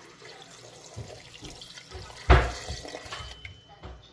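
Water running from a kitchen tap into a cooking pot, with a few light knocks and one loud clank a little over two seconds in.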